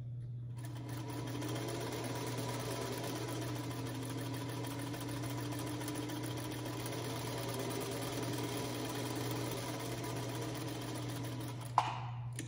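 Singer Featherweight sewing machine stitching a seam at a steady speed, starting about half a second in and stopping with a sharp click near the end.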